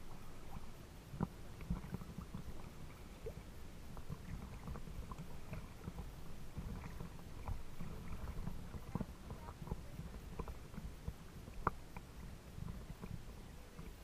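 Small waves lapping and sloshing against a camera at the waterline: an uneven low rumble with scattered small splashes and ticks.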